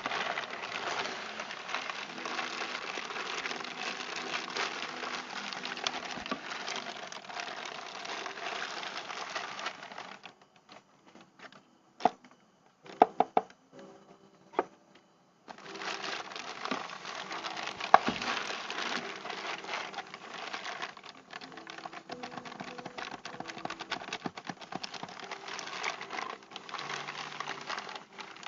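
Plastic packaging crinkling and rustling as a new tripod is unboxed by hand. A quieter pause in the middle holds a few sharp clicks or knocks.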